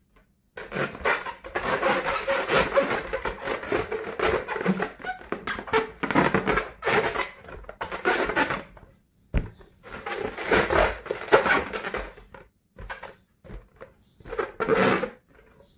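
Rubber balloon being handled: irregular stretches of rustling, rubbing noise, with a single sharp click about nine seconds in and shorter bursts near the end.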